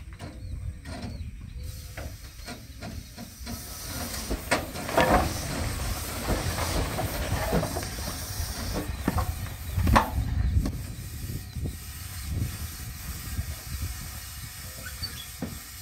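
Steam traction engine hissing as it vents steam, over a steady low rumble, with several short louder gusts in the middle stretch.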